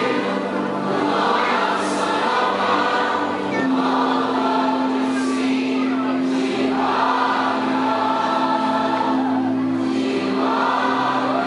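Christian song sung by a choir over instrumental backing, with a long held low note under the voices from about four seconds in.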